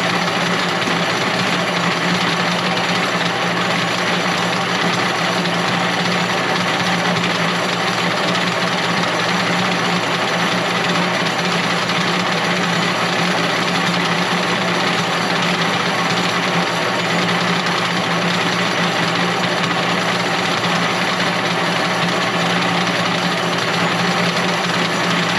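A machine running steadily with a constant low hum and a dense mechanical rattle, unchanging throughout.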